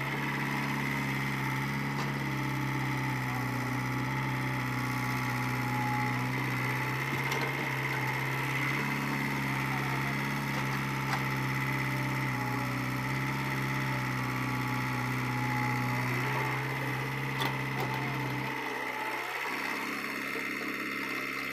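Diesel engines running steadily as a Caterpillar crawler excavator loads soil into tractor trolleys, with a tractor idling beside it, and a steady high whine over the engine hum. The lowest part of the hum drops away about three-quarters of the way through.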